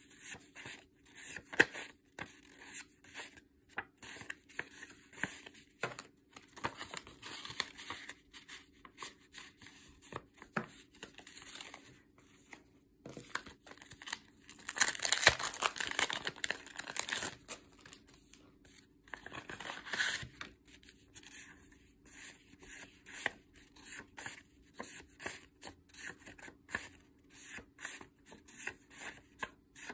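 A stack of die-cut paper stickers being leafed through by hand, piece by piece, giving crisp paper rustles and light taps. Midway there is a longer, louder rustling and crinkling stretch as a plastic packet of paper goods is handled.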